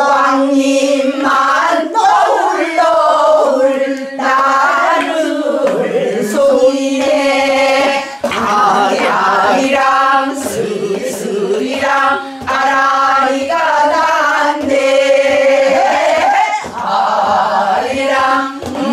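A small group of men and women singing a Korean folk song (minyo) together in full voice, with long held notes that bend up and down between short breaths.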